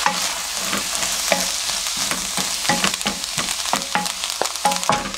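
Diced onions sizzling over low heat in a nonstick wok while a wooden spatula stirs them, with many short knocks and scrapes of the spatula against the pan.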